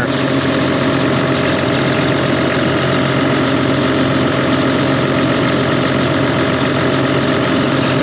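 John Deere 7200R tractor's six-cylinder turbo diesel engine idling steadily while it warms up, freshly restarted.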